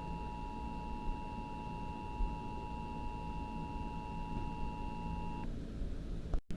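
Emergency Alert System attention signal: two tones sounding together, steady and unwavering, over a low background rumble, cutting off suddenly about five and a half seconds in.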